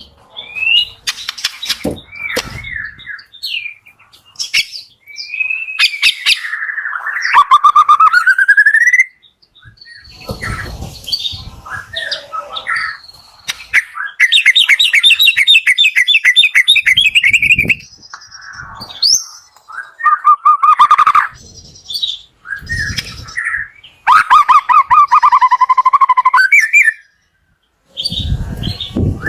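White-rumped shama (murai batu) singing a loud, varied song in bursts with short pauses. It mixes whistled glides, fast trills of rapidly repeated notes and harsh scratchy calls, the kind of recording played as a lure to get a reluctant caged shama singing.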